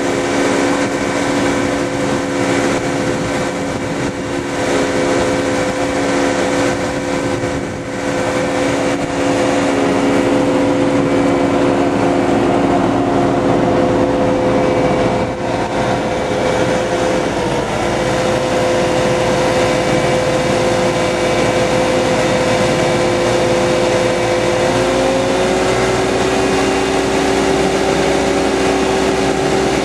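A 125 hp hydraulic thruster system running steadily under power, giving a steady machine hum with several held tones whose pitch shifts slightly a couple of times, over the rush of churning prop wash.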